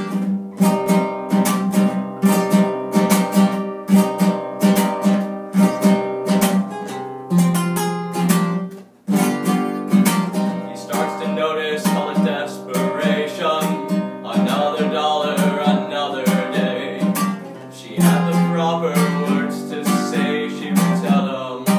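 Instrumental break in a song: acoustic guitar strummed in a steady rhythm, with a short stop about nine seconds in before the strumming resumes.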